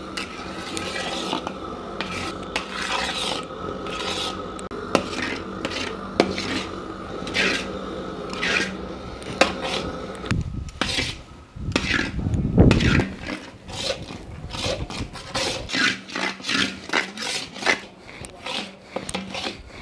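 Long-handled metal ladle scraping and stirring thick beetroot-and-jaggery paste in a large iron kadai, in repeated strokes that come faster near the end. The stirring is constant to keep the thickening paste from sticking to the bottom of the pan. A low bump sounds about halfway through.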